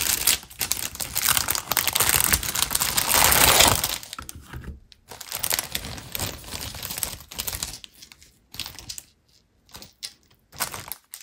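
A small plastic bag crinkling as it is opened and handled, loud and continuous for about four seconds, then quieter scattered rustles and small clicks.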